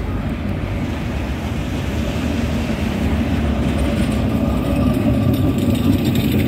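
V3A-93 articulated tram pulling into the stop alongside and slowing, its wheels and running gear rumbling on the rails and growing louder as it draws level, with street traffic running behind.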